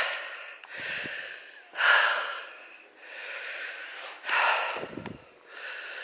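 A man breathing hard close to the microphone, out of breath from climbing a hill: a loud breath about every two seconds with softer ones in between.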